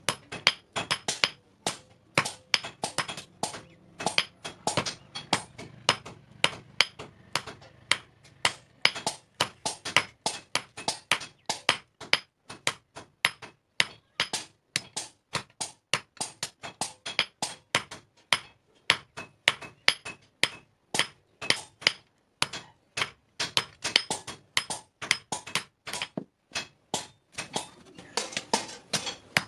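Blacksmith's hand hammer striking hot steel on an anvil while forging a knife. It is a quick run of sharp, ringing metal blows, about three a second, with a few short pauses.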